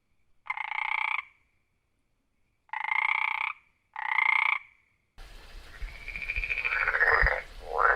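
Frog calls: three short croaks, each under a second, with silence between them. About five seconds in, a different recording starts, with a steady background hiss and further frog calls, some falling in pitch.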